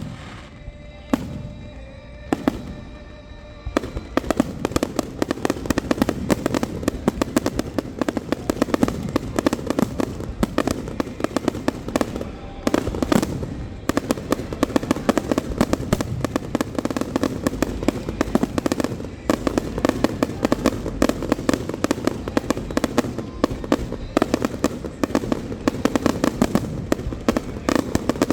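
Fireworks going off: a few separate bangs, then from about four seconds in a dense, continuous barrage of rapid crackling and bangs.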